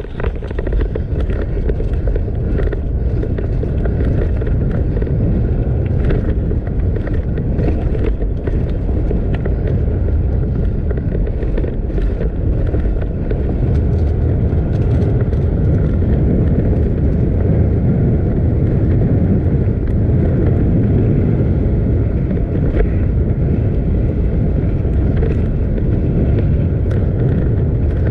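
Wind rushing over the camera microphone and tyre rumble of a downhill mountain bike rolling fast on a descent, with scattered knocks and rattles from the bike over bumps in the first half.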